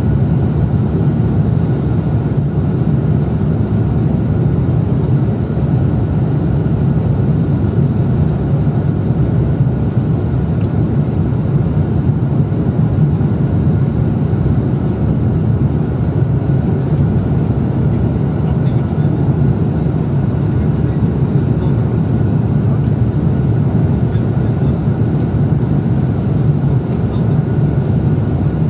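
Steady cabin noise inside an Airbus A350-1000 on final approach: an even rumble of airflow and its Rolls-Royce Trent XWB engines, heavy in the low end, with a faint steady whine above it.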